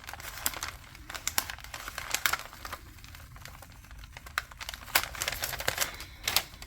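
Paper and plastic packaging crinkling and rustling, with sharp uneven clicks and taps, as small craft supplies are handled.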